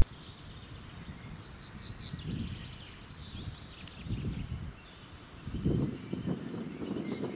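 Quiet riverside outdoor ambience: faint bird calls with a few low gusts of wind on the microphone, the strongest near the end.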